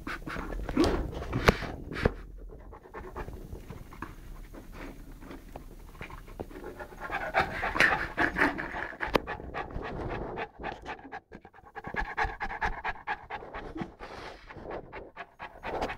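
Saint Bernard puppy panting rapidly, with a few sharp clicks, the loudest about a second and a half in.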